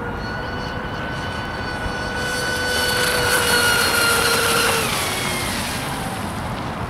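Triton RC speedboat running fast across the water: a steady high motor whine with the hiss of its spray. It grows louder as the boat nears, then drops in pitch and fades as it passes, about three-quarters of the way through.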